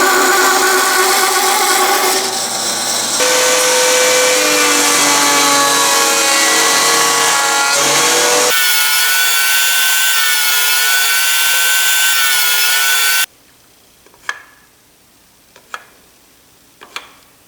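Electric power tool whining as it cuts into wood, its pitch wavering slightly under load, in several segments that change abruptly. About 13 seconds in it stops suddenly, and a few light knocks follow.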